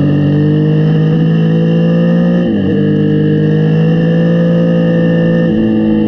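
Yamaha Tracer 900's 847 cc inline-three engine running steadily under way, heard from a helmet camera. Its pitch dips briefly about two and a half seconds in, then holds again, with a small shift in pitch near the end.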